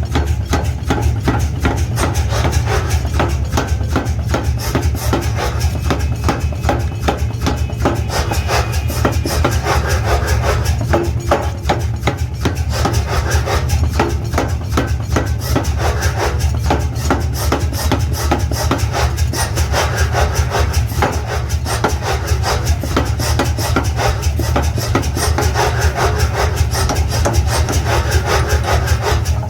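Mechanical power hammer striking hot steel in rapid, steady blows, over the constant hum of its drive motor.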